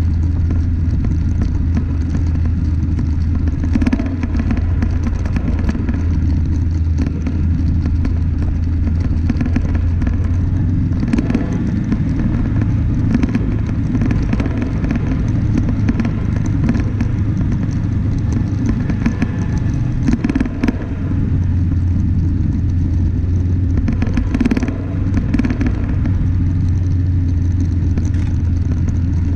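Off-road vehicle driving along a gravel track: a loud, steady low drone of engine and rumble, with the scattered clatter of stones under the wheels.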